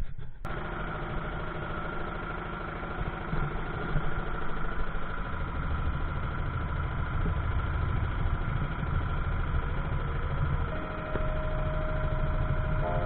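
A fishing boat's engine running steadily, with a deep, even throb.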